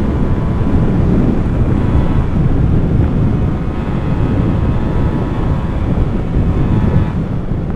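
Two-stroke motorcycle engine running on the move, with heavy wind buffeting the microphone.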